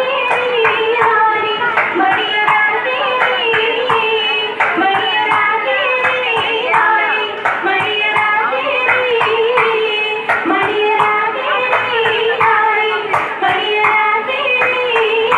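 Oppana song sung with steady, evenly spaced hand-clapping keeping the beat.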